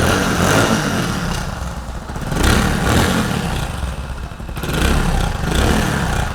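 Hero Splendor's single-cylinder four-stroke engine running, with the throttle blipped twice, and a jangling rattle from the exhaust. The rattle comes from a cracked inner pipe in the double-walled front bend pipe knocking against the outer pipe.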